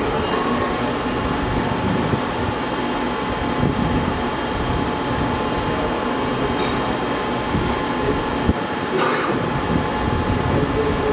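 CNC turning lathe running, a steady mechanical drone with a thin high-pitched whine over it. A brief louder noise comes about nine seconds in.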